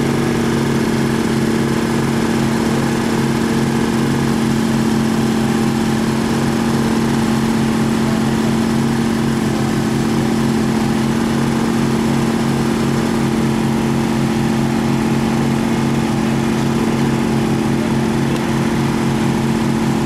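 An engine running steadily at a constant speed, a low even drone with no change in pitch.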